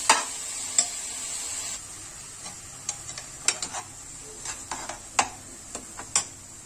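Mushrooms and ground paste sizzling in an aluminium kadai while a perforated metal ladle stirs them, scraping and clicking against the pan in a string of sharp taps. The sizzle softens a little after about two seconds.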